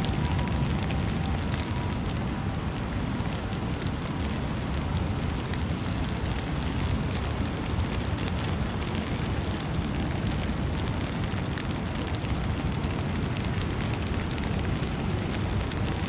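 Steady low rumble of outdoor city ambience, with a thin hiss above it and no single event standing out.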